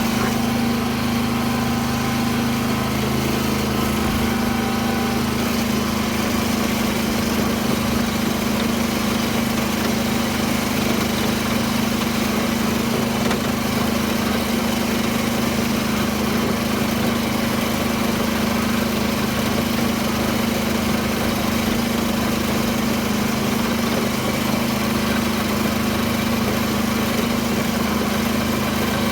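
Tractor engine running steadily under load while pulling a rotary tiller through a field, with an even drone and a constant pitch.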